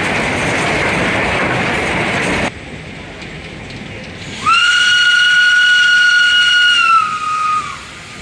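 Vk4 steam tank locomotive's whistle blowing one long blast of about three seconds, a steady high note that sags slightly in pitch just before it stops. Before it, a loud rushing noise of the moving locomotive, heard from its footplate, stops abruptly.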